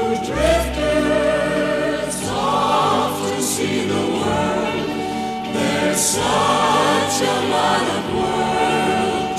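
Background music: a choir singing slow, held notes.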